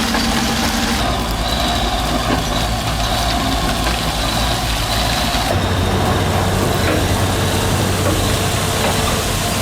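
Large diesel engine of heavy earthmoving machinery running hard, a steady heavy engine noise that changes in character about halfway through.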